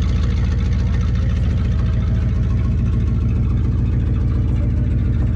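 Engine of an old Ford F-350 bumpside truck idling steadily with a low, even rumble. It is a long-dormant engine, just brought back to running after sitting for over thirty years.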